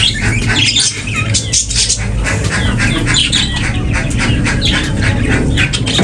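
A flock of budgerigars chattering and squawking continuously, with rapid overlapping chirps.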